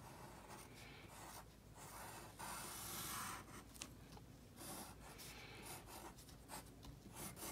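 Faint pencil scratching on paper: a run of short drawn strokes, with one longer stroke about three seconds in.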